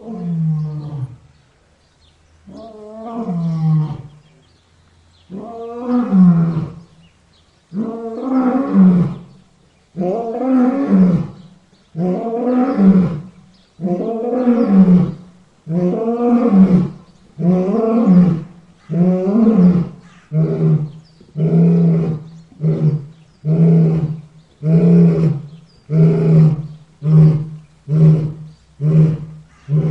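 Lion roaring in a full bout: a few long, rising roars first, then a run of shorter grunting roars that come faster and faster, about one a second near the end.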